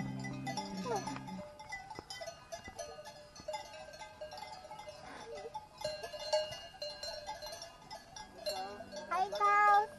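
Cowbells on grazing cattle ringing and clanking unevenly. About nine seconds in comes a loud, wavering call from the cattle.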